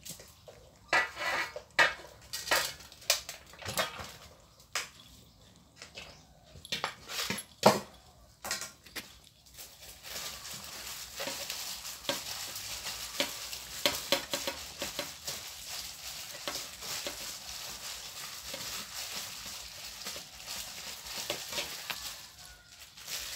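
Several cats eating together from a tray of crumbly food, crunching and crackling. In the first ten seconds there are separate louder crunches and clicks. After that it settles into a steady dense crackle.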